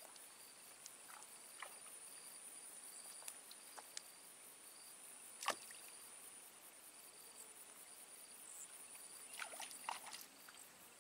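Near-quiet outdoor ambience: a faint steady high thin tone and a faint, broken high chirping over a soft hiss. A few soft clicks, the sharpest about halfway through.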